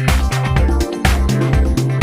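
Background electronic dance music with a steady beat and a pulsing bass line.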